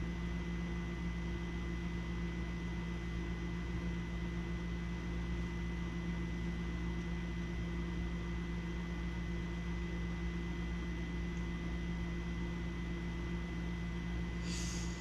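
Small pump in a Fieldpiece pressure switch tester running steadily, a hum with a thin high whine over it, while it holds pressure on a universal furnace pressure switch being set to close near 0.48. A short soft hiss comes near the end.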